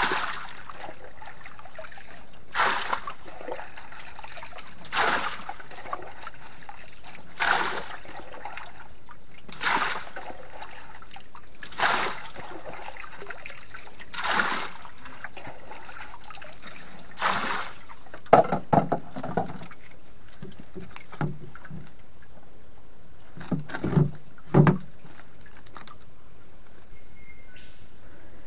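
Water poured from a plastic container into a bamboo fish-holding box, splashing in regular surges about every two and a half seconds. Near the end, a cluster of low knocks.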